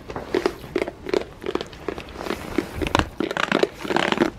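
Goats chewing crunchy treats, a quick run of crunches at about two to three a second.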